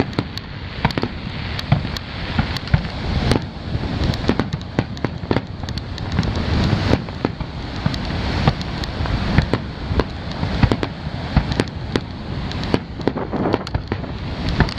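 Aerial firework shells bursting in a dense barrage: many sharp bangs in quick, irregular succession over a continuous background of booms and crackle.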